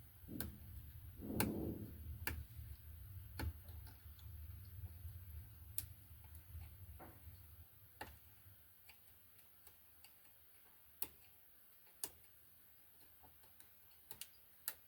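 Small sharp clicks, irregular and a second or more apart, as a screwdriver pushes the pins of a Raymarine ST60 Tridata LCD free from the board one by one; each click means a pin has come loose. A faint low hum sits underneath for the first half.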